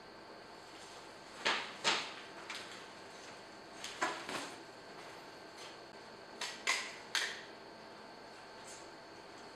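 Scattered sharp taps and clicks of things being handled at a desk, about ten in all, some in quick pairs and small clusters, over a faint steady room hiss.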